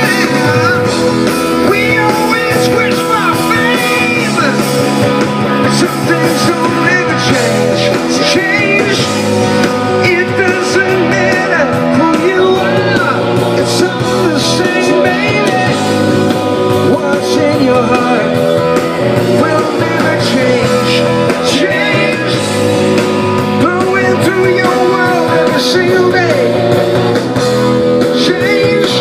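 Live rock band playing with a male singer, amplified through a PA at a sound check: electric guitar and held chords under the vocal line.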